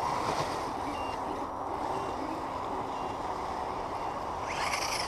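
Steady whirring of a radio-controlled vehicle's small electric motor running, with a few short faint high beeps.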